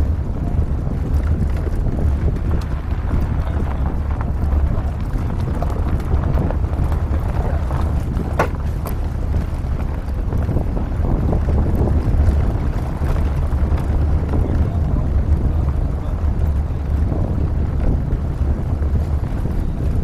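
Pickup truck driving on a dirt road, heard through wind buffeting a roof-mounted camera's microphone as a steady low rumble and rushing noise. One brief high note sounds partway through.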